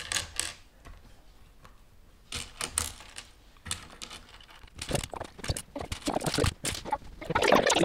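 Loose plastic Lego Technic pieces clicking and clattering as a hand rummages through a tray of parts, a few scattered clicks at first, then a busy clatter from about five seconds in.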